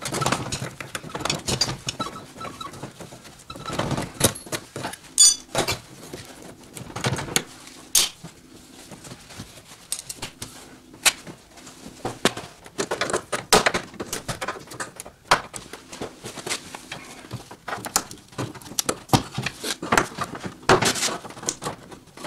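Irregular clicks, knocks and rustling of hands and tools working an old car's interior door trim panel loose, with a few short metallic clinks.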